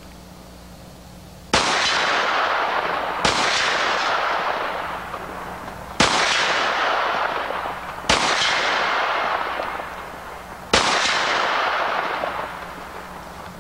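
Five shots from a Mech-Tech CCU pistol-carbine conversion chambered in .460 Rowland, fired at a slow, irregular pace between a second and a half and nearly three seconds apart. Each shot is followed by a long rolling echo that dies away.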